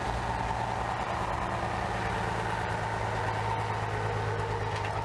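Heavy vehicle engine idling steadily with a low, even hum.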